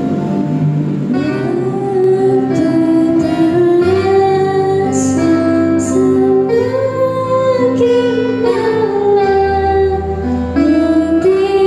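A girl singing a song into a microphone, accompanied by two acoustic guitars; the guitars play alone at first and her voice comes in about a second and a half in.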